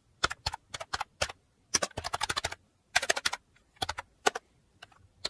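Rapid clicking in short bursts of several clicks each, with brief pauses between, in the manner of typing on keys.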